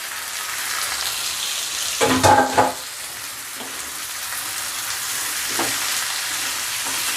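Turmeric-coated prawns frying with sautéed onions in a pan, a steady sizzle as they are stirred, with a brief louder noise about two seconds in.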